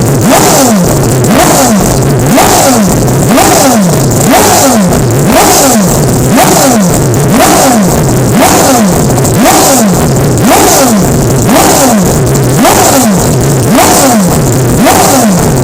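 Mazda 767 Group C race car's four-rotor rotary engine being blipped again and again, its pitch rising and falling about three times every two seconds.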